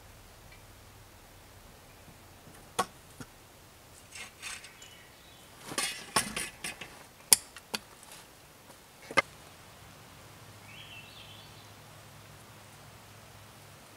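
Scattered sharp knocks and clicks of wooden poles and hand tools being handled, with a quick cluster of them a little past the middle and brief rustling before it.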